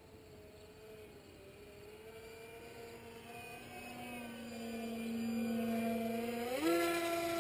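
Motor and propeller of a home-built depron RC model plane in flight, a whine that grows steadily louder as the plane approaches. About six and a half seconds in, its pitch jumps up sharply as the motor speeds up.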